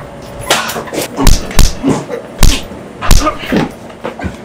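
A series of hard smacking blows, four loud ones roughly half a second to a second apart, with a person's wordless voice sounds between the hits.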